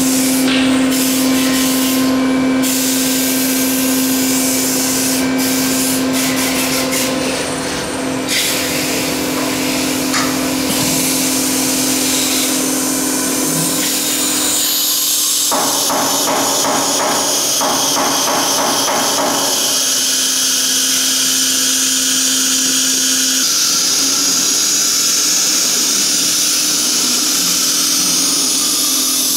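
CNC router's 9 kW HSD air-cooled spindle running and cutting MDF: a steady whine under a hiss of cutting. A rapid rattle joins in for a few seconds just past the middle.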